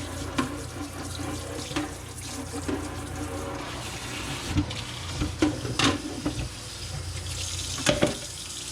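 Kitchen tap running into a sink, with several sharp knocks and clatters of things being handled in the sink.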